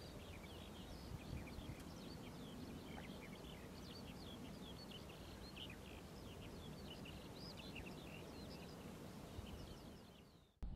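Faint chorus of many small birds chirping and calling at once, over a low steady background noise, fading out shortly before the end.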